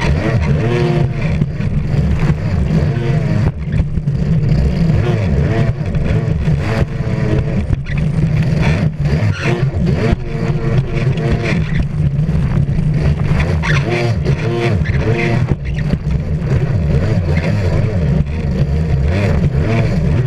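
Stand-up jet ski engine at racing speed, heard from the craft's bow: its note rises and falls again and again as the rider throttles on and off through the turns, over the rush of water spray.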